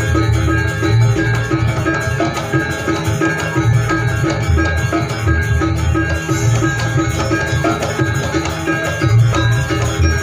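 Live janger gamelan: metallophones play a fast repeating figure over pulsing drums and deep gong strokes.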